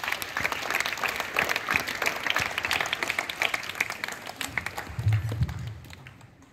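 A crowd of schoolchildren applauding, many hands clapping at once, dying away about five seconds in, with a few low bumps near the end.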